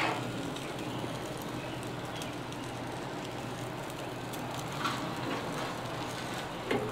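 Steady low rumble and hiss of background noise, with a few faint clicks and a sharper metallic knock near the end as a steel hotel pan is set down on the griddle top.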